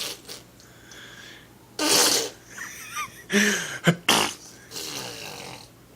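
A young child blowing raspberries with her lips, making several short spluttering fart noises.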